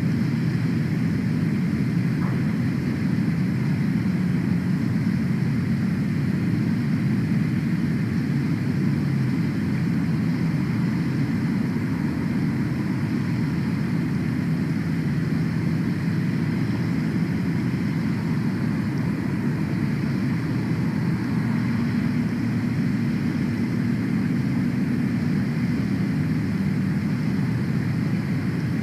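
Steady low rumble of outdoor noise picked up by the nest cam's microphone, unchanging throughout, with no clear bird calls.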